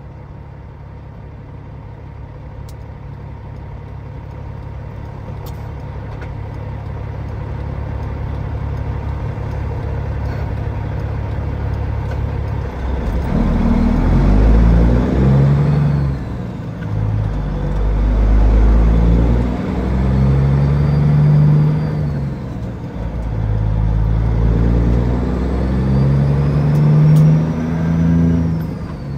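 Peterbilt 379's diesel engine running steadily and slowly growing louder, then from about halfway through pulling hard up through the gears. Its pitch climbs and drops back at each of several shifts.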